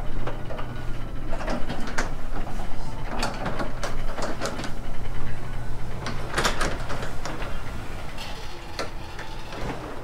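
Sectional garage door closing under a LiftMaster 8500W opener: a steady hum with repeated clicks and clunks as the panels roll down their tracks, easing off as the door seats near the end.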